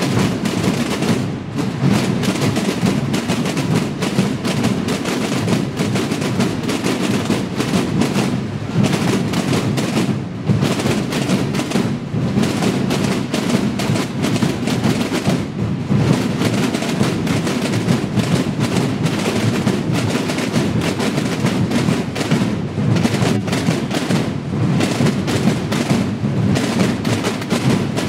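Massed tamborada drumming: dozens of rope-tensioned snare drums and bass drums from a Holy Week drum corps, beaten together in a dense, continuous roll of strokes, with a few brief dips now and then.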